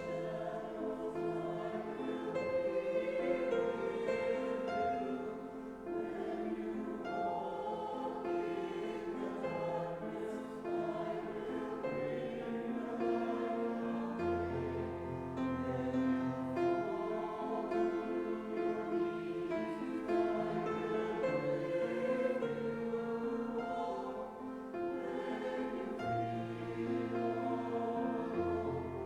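Church choir singing an anthem with instrumental accompaniment, held low bass notes entering at times.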